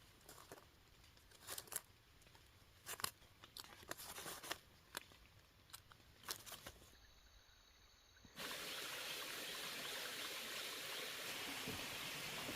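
A few scattered short crunches and snaps, then about eight seconds in a steady rushing hiss starts abruptly and holds.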